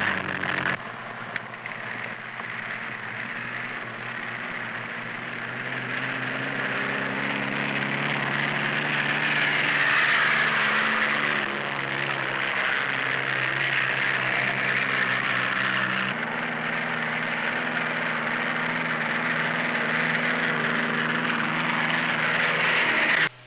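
Single-engine propeller aircraft running steadily: the engine and propeller drone, growing louder over the first ten seconds or so, with a slight change in pitch about two-thirds of the way through. The aircraft is the Stipa-Caproni tubular plane, whose propeller sits inside its barrel-shaped fuselage.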